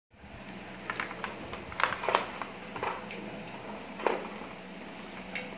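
Handling noise on a tabletop: about six light clicks and knocks over a steady low hum.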